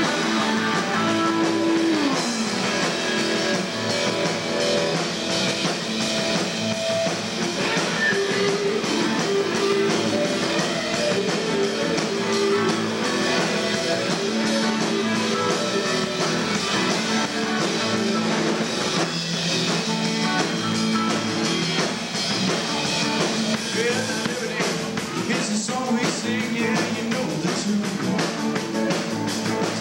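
Live rock band playing: electric guitars over a Fender electric bass and a drum kit, with a guitar note bent downward about two seconds in.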